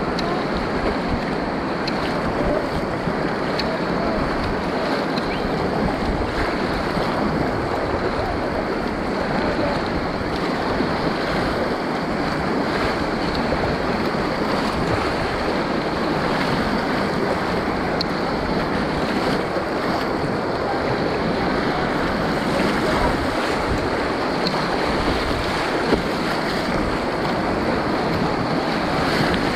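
Steady rushing of river whitewater heard from a kayak in the middle of a rapid, with waves splashing against the bow and hull.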